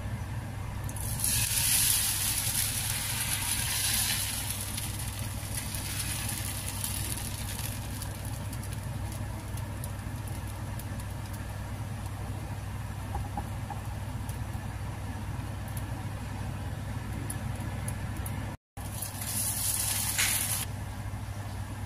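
Thin crepe batter sizzling with a loud hiss for a few seconds as it is poured into a hot oiled nonstick pan, over a steady low hum. A second, shorter hiss comes near the end.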